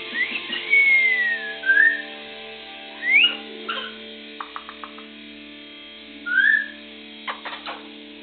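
Congo African grey parrot whistling: several short whistles that slide up or down in pitch, with a few quick clicks between them.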